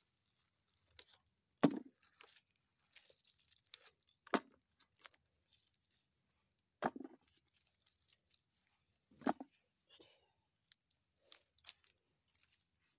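Handfuls of loose oil palm fruits dropped into a plastic bucket: four thuds about two and a half seconds apart, with light crackling of dry fronds and ground litter between them, over a steady high hum.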